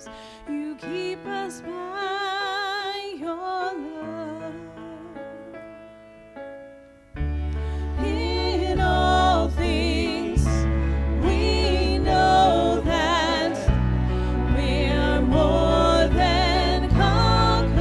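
A woman singing a slow worship song, holding notes with vibrato, over keyboard chords. About seven seconds in, deep bass notes come in and the accompaniment swells louder and fuller.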